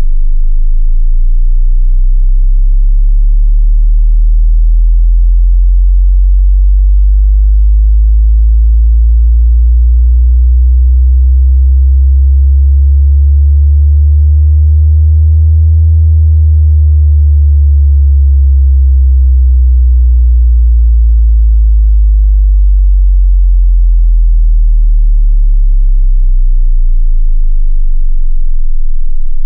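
Synthesized deep bass test tone for subwoofers, played very loud, gliding slowly up in pitch to a peak about halfway through and then slowly back down, over a steady deep bass hum, with buzzy overtones above it.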